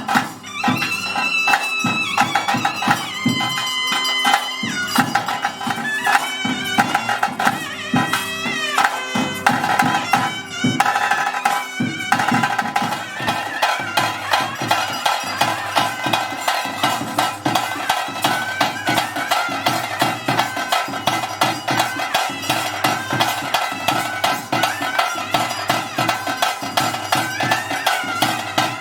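Traditional bhuta kola ritual music: a reedy wind pipe plays a melody with sliding pitch bends over a steady drone, with drums. About twelve seconds in the drumming turns fast and continuous.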